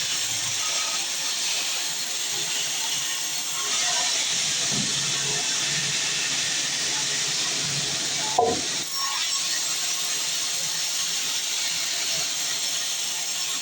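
Band sawmill blade cutting through a dense log: steady sawing noise, with a single sharp knock about eight seconds in.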